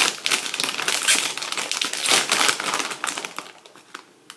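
Plastic chip bag crinkling as it is handled and opened, a dense crackling rustle that dies away about three and a half seconds in.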